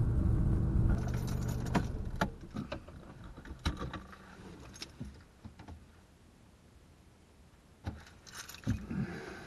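Car's engine and road rumble, picked up through the dashboard-mounted action camera, dying away as the car comes to a stop. Then scattered sharp clicks and rattles, like keys jangling, with a cluster near the end.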